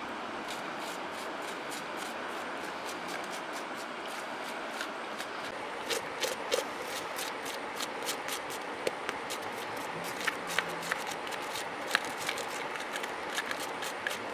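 A thin bamboo stick scraping the charred skin and scales off a fire-roasted snakehead fish in many quick scratchy strokes, thickest from about halfway through, over a steady rushing hiss.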